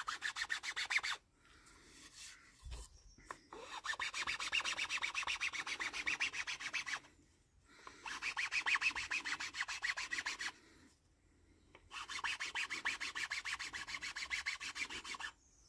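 An old round chainsaw file being worked back and forth along a groove cut into a wooden hiking-stick handle, in quick even strokes of several a second. The strokes come in runs of about three seconds with short pauses between them. This is hand-filing of a spiral grip groove, slow work that removes little wood at a time.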